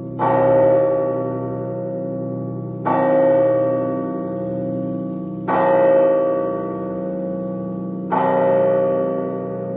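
Russian Orthodox church bells ringing. A bell is struck four times, about every two and a half seconds. Each strike rings on and fades over a deep, steady hum of lower bells.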